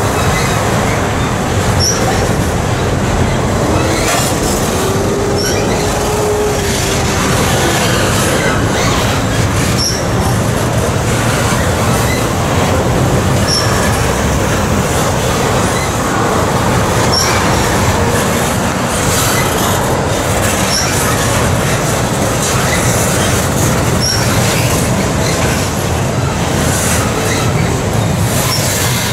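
CSX intermodal freight train's cars rolling across a steel girder bridge overhead: a loud, steady rumble and rattle of wheels on rail, with sharp clicks recurring every few seconds.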